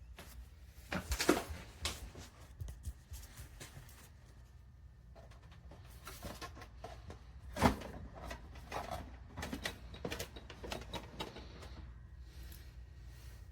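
Handling noises: a scattered series of light clicks, taps and rustles, with two louder knocks, one about a second in and one near eight seconds.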